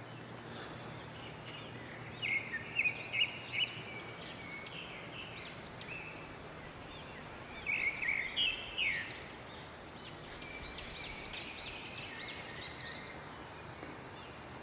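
Songbirds singing in short bursts of quick, high chirping phrases, in three spells about two, eight and eleven seconds in, over a steady hiss of running creek water.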